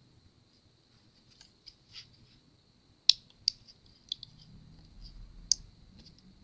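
Small sharp clicks and scratchy ticks of a metal pick and plastic parts as the power button board is pressed and seated into an HP 15-cp laptop's frame. The sharpest click comes about three seconds in, with a few more over the next two seconds.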